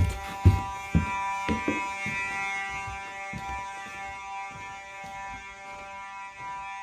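Fire alarm horn sounding continuously with a steady buzz. A few low thumps come in the first two seconds.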